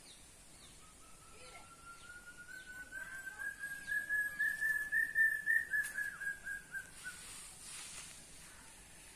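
A single long whistled note that wavers in loudness and slowly rises in pitch for about six seconds before fading out, with faint bird chirps behind it.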